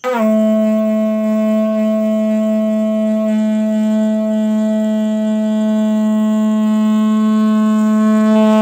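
A one-metre length of 1-inch PVC wiring conduit blown like a conch shell (shankh), sounded with the lips rather than plain blowing. It gives one long, loud, steady horn-like note, with a slight rise in pitch as it begins.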